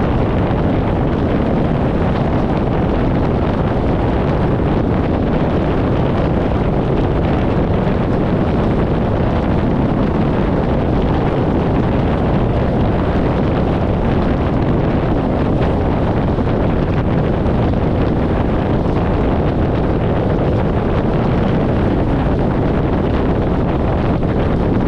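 Steady rush of wind buffeting a microphone mounted outside a moving 1994 VW Gol at highway speed, mixed with tyre and road noise, low and unchanging.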